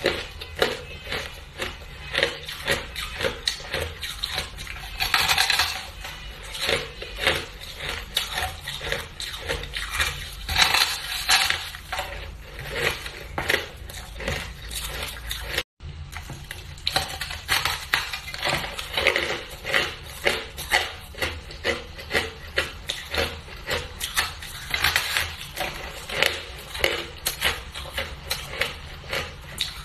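Close-up crunching and chewing of a block of frozen powdery ice: dense, irregular crisp crunches one after another. The sound cuts out completely for a moment just past halfway.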